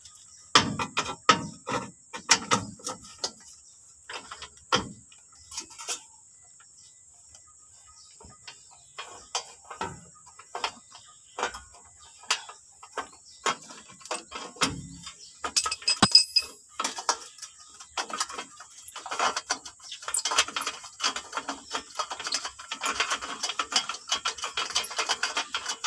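Hand work on a pickup's parking brake cable and fittings from underneath: irregular metallic clicks, taps and rattles. There is a quieter pause a few seconds in, and the clicking grows denser near the end.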